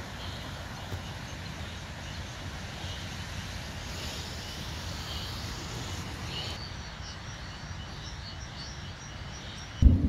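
Motor cruiser's engine running as the boat moves away, a steady low rumble. Faint high chirps repeat in the second half, and a sudden loud rush of wind on the microphone comes at the very end.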